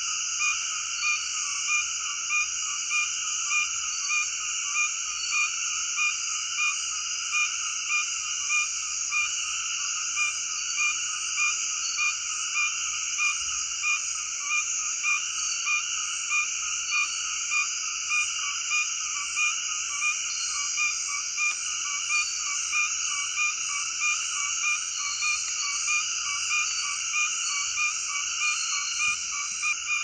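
Lined antfrog (Lithodytes lineatus) calling: a short call repeated evenly about every three-quarters of a second, over a steady high-pitched insect chorus.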